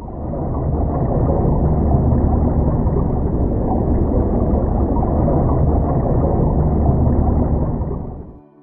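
Steady, muffled rumble of water moving around an underwater camera. It starts suddenly and cuts off shortly before the end.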